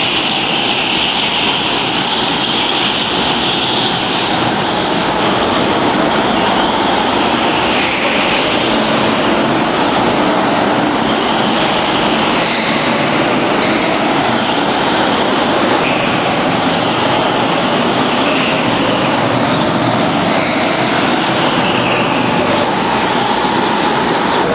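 Several go-kart engines running and revving as the karts lap an indoor track hall, a steady loud din whose pitch keeps rising and falling.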